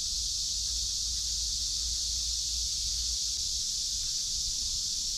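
Steady, high-pitched drone of a chorus of cicadas (kuliglig), unbroken throughout, over a low rumble.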